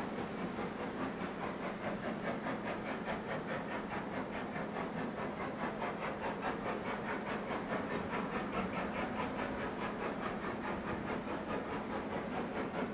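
Steam locomotive working under steam as it approaches, its chimney exhaust beating in a quick, even rhythm over a steady hum.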